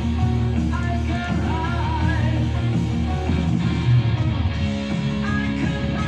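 Rock music: a band track with electric guitars, drums and a singer holding wavering notes.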